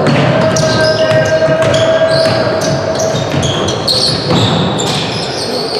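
Football match play: the ball being kicked and bouncing again and again, over a steady background tone.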